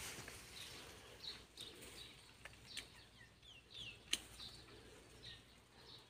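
Small birds chirping in short high calls, several of them sliding down in pitch, with two sharp clicks, the louder one about four seconds in.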